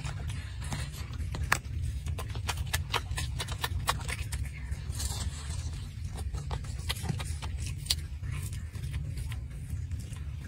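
Golden snub-nosed monkey eating fruit close to the microphone: scattered sharp clicks and smacks of chewing at irregular intervals over a steady low rumble.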